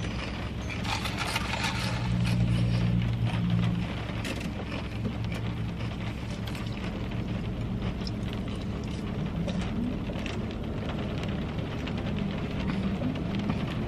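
Inside a car: a steady low engine hum, louder for a few seconds near the start, with scattered light ticks over it.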